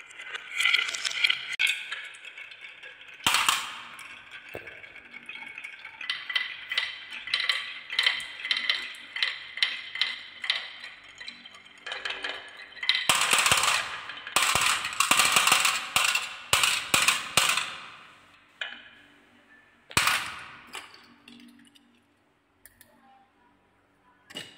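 Glass marbles rolling and clattering through a wooden marble run, rattling along the wooden tracks and clicking against each other and the wood. The clatter is busiest through the middle, then thins out to a few scattered clicks near the end.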